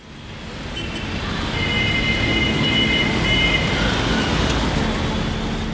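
Steady rush of motorway traffic, fading in from silence over the first second or so, with a thin high whine over it for about two seconds.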